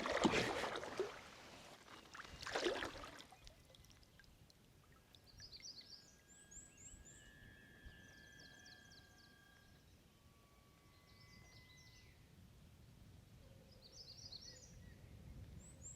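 Faint outdoor sound: a brief watery rush at the start and again about two seconds later. Then, from about five seconds in, small groups of quick, high, falling chirps repeat several times, joined by long, thin, steady whistling tones held for a second or two.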